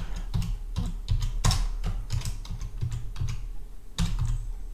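Typing on a computer keyboard: a quick run of irregular keystrokes, about three to four a second.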